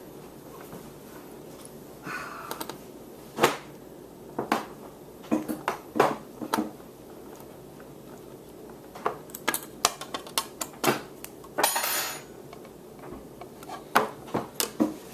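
Irregular clicks and knocks of a hard-resin outdoor thermometer and its suction cups being handled and fitted on a tabletop, with a short scraping sound about two seconds in and another near the end.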